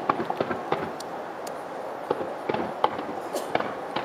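Fireworks going off: sharp pops and crackles over a steady background rumble, a quick cluster of them in the first second, then scattered single reports.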